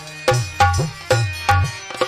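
Dholak playing a lively rhythm, about five sharp strokes in two seconds, with deep bass-head strokes that slide up in pitch, over steady held harmonium notes.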